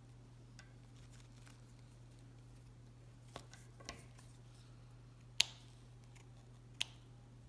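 Scissors snipping an orchid's roots: four short sharp snips, spaced about a second apart in the second half, the third the loudest, over a faint low hum.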